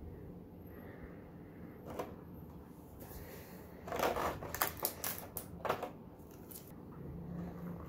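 Clear plastic blister packaging being handled, crinkling and clicking: one click about two seconds in, then a run of sharp crackles from about four seconds in as the tray is pressed and a plastic sheet is lifted. A steady low hum runs underneath.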